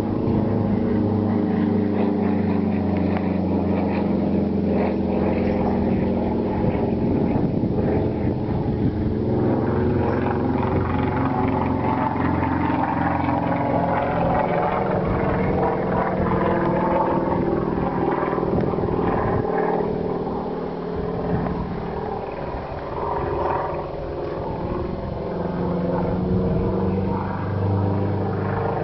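Propeller aircraft flying overhead: a steady engine drone whose pitch drifts up and down as the plane manoeuvres, dipping a little in loudness around the middle.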